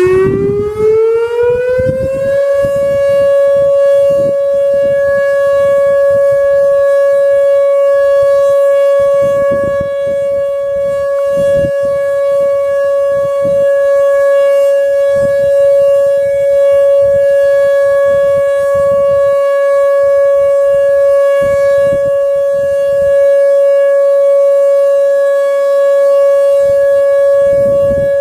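Whelen WPS-2750 electronic outdoor warning siren sounding its steady Alert tone in a monthly test. It winds up in pitch over the first two seconds or so, then holds one loud, steady pitch.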